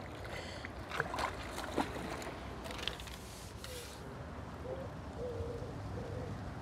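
Landing net being slid under a carp in the water: soft water sloshing, with a few small sharp splashes and drips in the first three seconds.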